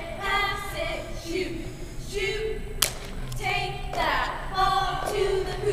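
Young women's voices shouting a cheer chant together in drawn-out syllables, with one sharp hit about three seconds in, typical of a cheerleader's clap or stomp.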